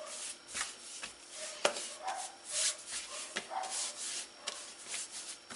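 Hands kneading a soft dough on a floured granite countertop: repeated rubbing, swishing strokes of palms on the dough and stone, with a few sharp taps.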